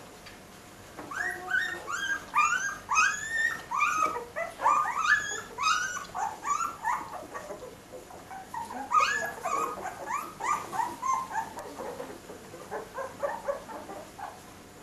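A litter of newborn Dalmatian puppies whimpering and squeaking. There are many short, high cries, several a second and overlapping, with a brief lull about eight seconds in.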